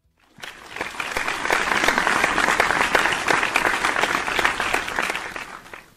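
Applause: many hands clapping together. It swells in about half a second in, holds, and fades out near the end.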